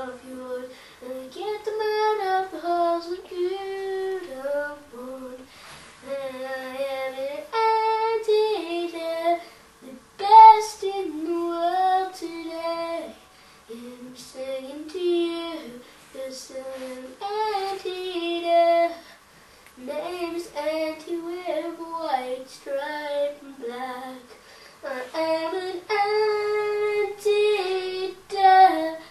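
A child singing unaccompanied in a high voice, in phrases broken by short pauses.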